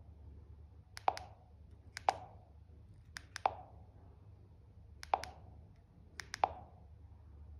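Front keypad buttons on a TXQ V8 handheld 4G walkie-talkie pressed about five times, about a second apart. Each press gives a short plastic click, mostly doubled as the key goes down and comes back up.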